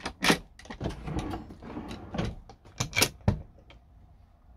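Campervan kitchen drawers and a hinged cabinet flap being opened and shut: a run of clicks and knocks from the metal push-latch catches and the wooden fronts, with the rub of the drawer sliding on its runners.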